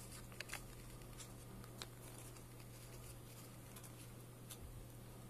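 Faint rustling and light taps of a sheet of origami paper being handled and creased during a petal fold, over a steady low hum.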